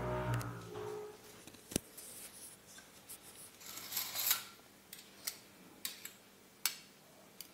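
A metal teaspoon clicking and scraping against small glass bowls while baking powder is scooped and measured out: a series of sharp short clicks with a brief scrape about four seconds in. A low muffled bump comes from the camera being handled near the start.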